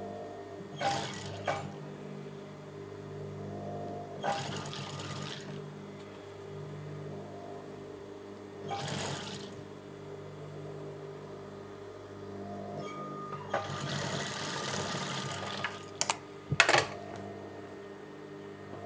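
Industrial sewing machine stitching in four short runs, the last and longest lasting about two seconds, over the steady hum of its motor. A few sharp clicks follow just after the last run.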